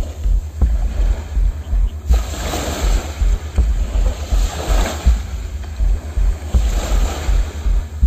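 Small waves breaking and washing up a sandy beach, the rush of surf swelling about every two seconds, over a low rumble.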